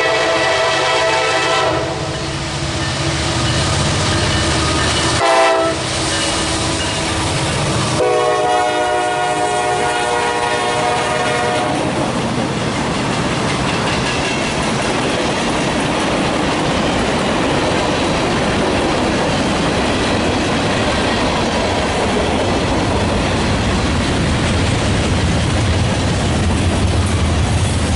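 Freight locomotive's multi-note air horn: one blast ending about two seconds in, a short blast around five seconds, then a longer blast, matching the end of the long-long-short-long grade-crossing signal. After that the freight train rolls past with a steady rumble and wheels clicking over the rail joints.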